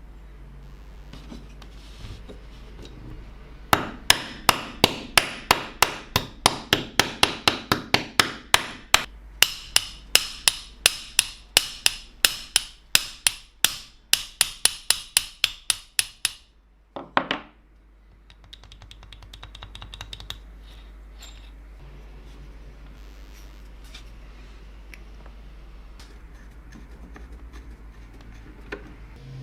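A hammer tapping metal in a quick, even series of sharp strikes, about three or four a second, for some twelve seconds. A short scrape follows.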